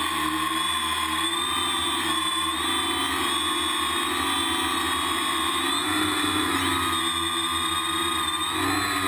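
Electric motors and propellers of an ArduCopter-flown drone, heard from its onboard camera: a steady whine of several tones that waver up and down in pitch together as the throttle changes, rising briefly about six seconds in.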